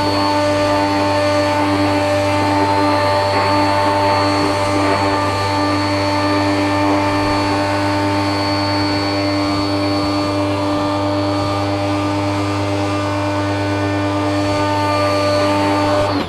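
Hyundai 105-bar, 1400-watt electric pressure washer running steadily. Its carbon-brush motor and pump give a constant hum under the hiss of the water jet spraying onto solar panels.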